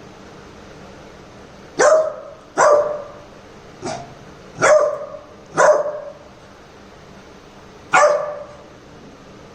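Labrador puppy barking: five short, sharp barks about a second apart, the third fainter, then one more bark after a pause of about two seconds.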